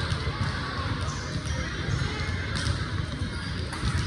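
Ball impacts on a gym court during a volleyball match: several sharp hits or bounces, with brief high squeaks, over steady noise of a large hall.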